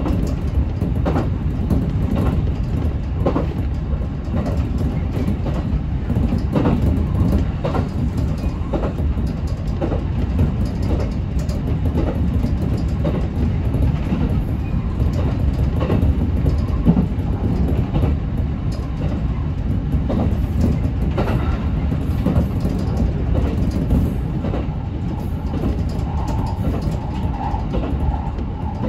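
Local electric train running at speed, heard from inside the front car: a steady rumble of wheels on rail, with clicks from the rail joints every second or so.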